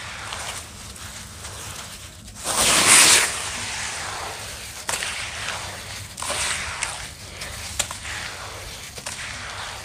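Red dirt crunching and crumbling in a run of crackly, gritty noises. One loud crunching burst comes about two and a half seconds in and lasts under a second, and a few sharp snaps follow later.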